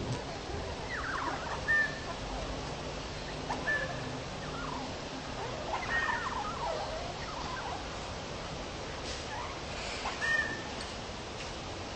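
Budgerigars chattering: scattered warbling chirps with four short, high peeps.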